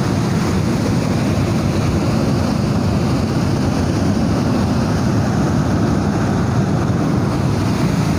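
Waterfall: white water cascading over rocks, a steady unbroken rush.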